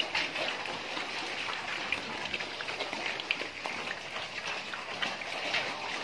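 Steady patter of water, with many small clicks and knocks scattered through it.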